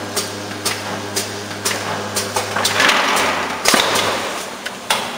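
Aluminium foil rewinding machine running its automatic labeling cycle: sharp mechanical clicks about twice a second over a steady motor hum, which stops about three seconds in and is followed by a spell of hiss.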